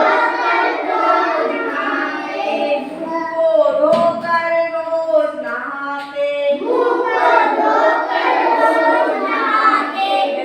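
A group of young children singing a Hindi action song together, unaccompanied, repeating the teacher's lines in call and response.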